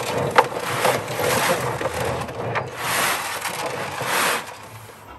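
Pellet cat litter sliding and rattling inside the plastic drum of a semi-automatic litter box as the drum is turned by hand. The sound comes in two long surges, with a few sharp clicks in the first second.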